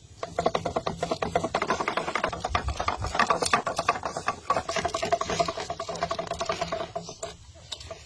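Homemade fishing-line spool spinning on its stick axle: a fast, even rattle with a steady whir under it, which stops about seven seconds in.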